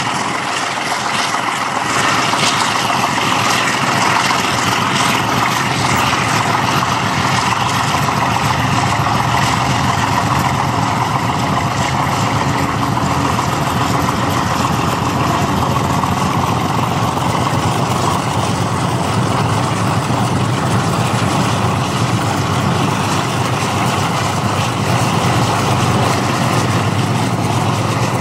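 Ex-NSW 44 class and 80 class Alco diesel-electric locomotives working under power as the ballast train departs: a steady heavy diesel drone, mixed with road and wind noise from a car driving alongside.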